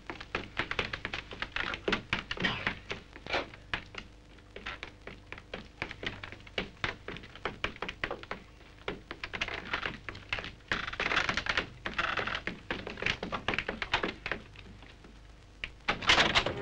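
Footsteps of several people climbing wooden stairs quickly: a rapid, irregular run of knocks and taps.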